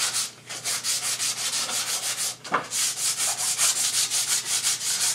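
Sheet of sandpaper rubbed by hand back and forth along a wooden board: quick, even scratchy strokes, several a second, with a short break about halfway.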